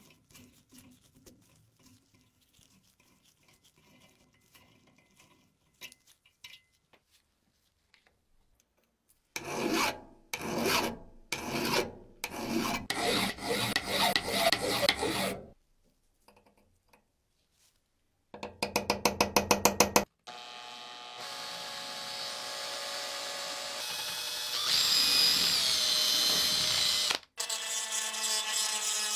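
Workshop tool work on the metal parts of an old sugar grinder. After some faint handling, there is a series of about six loud scraping strokes. Then a power tool gives a brief rapid pulsing, and then runs steadily with a whine whose pitch steps up partway through. It stops for a moment near the end and starts again.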